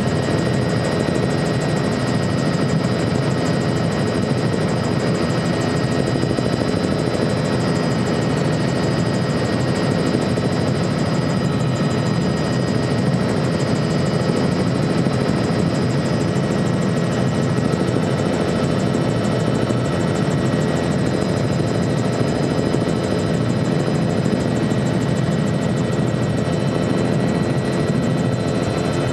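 Helicopter engine and rotor noise heard from inside the cabin in flight: a loud, steady drone with a thin high-pitched whine running over it.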